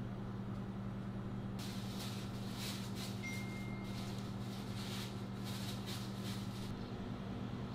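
Steady low electrical hum of kitchen equipment, with faint soft ticks and rustles as gloved hands set sugar pearls on a cake with tweezers. A brief faint beep comes about three seconds in.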